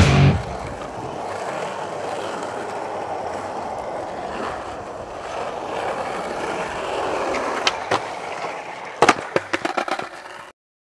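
Skateboard wheels rolling on asphalt. About eight seconds in there is one sharp clack, and near the end a quick run of clacks as the board hits the ground and clatters away.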